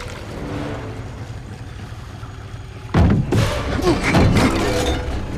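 Film sound effects of a giant anaconda attacking a river boat. A low rumble plays under the swirling water, then about three seconds in comes a sudden loud crash, followed by a run of heavy bangs and crashes for about two seconds.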